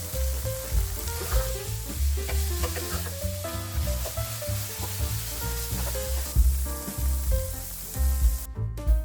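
Food sizzling in hot oil in a frying pan, with some stirring or turning; the sizzle fades about six seconds in. Background music plays throughout.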